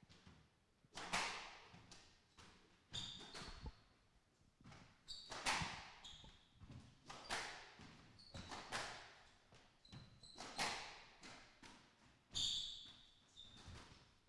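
Squash rally: the ball cracking off rackets and walls every second or two, each hit ringing in the enclosed court. Short high squeaks from shoes on the wooden floor come between some of the hits.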